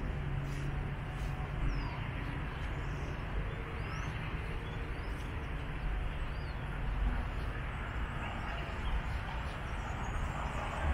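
Steady low outdoor rumble of town ambience, with a few short, rising bird chirps scattered through it.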